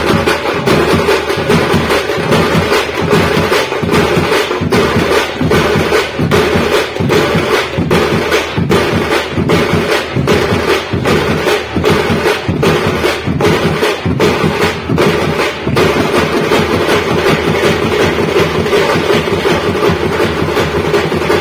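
Tamil thappattam street drum band playing together: large bass drums, snare drums and thappu frame drums beating a fast, loud, steady rhythm.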